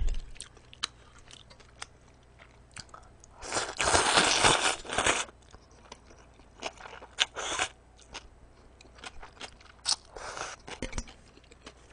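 Close-miked eating of cold kudzu-root noodles in broth: wet chewing and mouth clicks, with a longer slurping rush about four seconds in and a shorter one near ten seconds.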